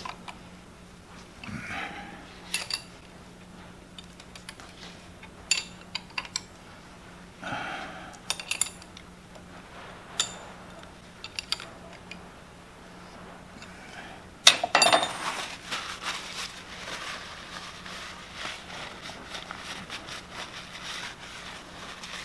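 Scattered light metal clinks and taps as parts and tools are handled on the lathe, with one sharp knock about two-thirds of the way through. After the knock comes steady rubbing as a rag is wiped over the machine's cast housing, over a faint steady hum.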